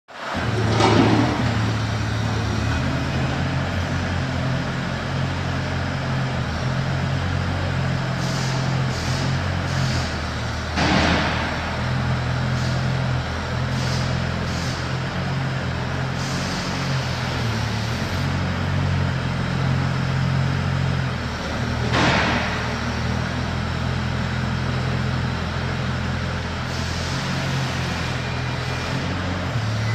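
Wheeled mini excavator's engine running steadily under hydraulic load, its note shifting as the boom and bucket dig and dump soil. A brief loud rushing noise comes three times, about ten seconds apart.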